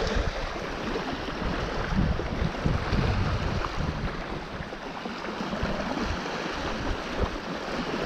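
Small waves washing onto a sandy beach, with gusts of wind buffeting the microphone.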